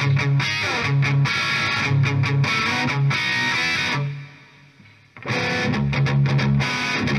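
Distorted electric guitar played through a Marshall 1959SLP 100-watt valve head, slaved to a project amp and run on a variac, heard from the speaker cabinet. The guitar plays a rhythmic riff of repeated low notes, stops about four seconds in for a second of near quiet, then starts again.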